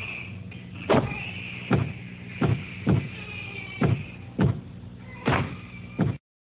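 A series of about eight dull thumps or knocks, roughly one a second at uneven spacing, over a steady low hum. The sound cuts off abruptly near the end.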